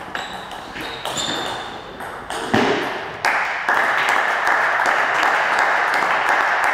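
A few sharp taps and a brief ringing ping, like a table tennis ball. Then spectators' hand clapping starts about three seconds in, grows louder a moment later and carries on steadily.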